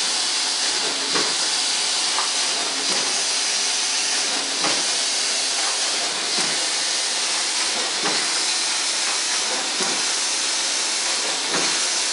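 Two linked MC-8 tower paper collators running, with a steady machine hiss. A short knock about every second and a half marks each set of sheets being fed out.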